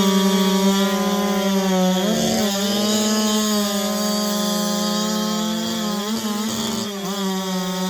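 Race chainsaw of 90cc or under (5.5 cubic inches), its two-stroke engine running flat out through a racing cut. It holds a steady high pitch, dipping briefly about two seconds in and a few times between six and seven seconds in.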